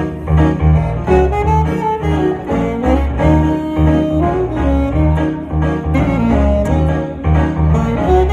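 Instrumental music played on a keyboard: a steady, repeating bass line under a melody that moves up and down.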